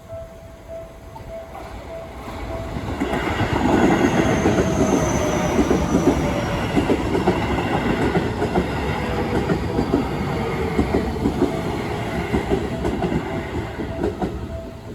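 Japanese level-crossing alarm bell ringing in a steady repeating beat, then an electric train on the Seibu Ikebukuro Line passes from about three seconds in, its wheels clattering over the rail joints, with a falling whine as it goes by. The train fades near the end and the crossing bell is heard clearly again.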